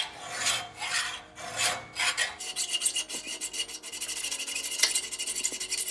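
Hacksaw blade sawing through the steel outer sleeve of an old suspension bushing, cutting a slit so the sleeve can be compressed and driven out of the frame. It starts with slow, long strokes, then settles into a fast, even run of short rasping strokes.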